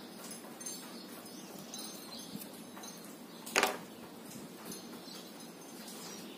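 A small kitchen knife set down on a hard tabletop, one short clatter a little past halfway, over a faint steady outdoor background.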